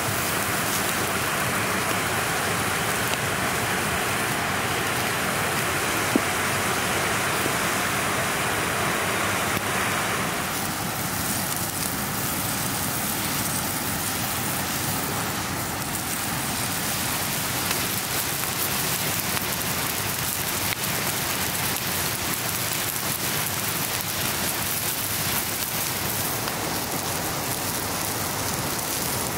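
Whole chicken and orange wedges sizzling on a hot grill grate over an open wood fire, with the fire crackling and one sharp pop about six seconds in. The sizzle is a little brighter for the first ten seconds, while the bird is set down, then settles to a steady hiss.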